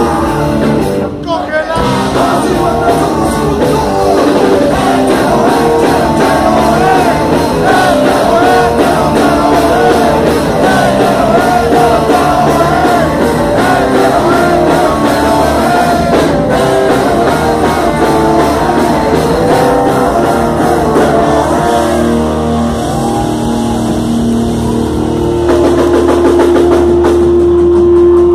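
Live rock band playing loud: electric guitars, drum kit and a sung vocal line. Near the end a single note is held steady for a few seconds.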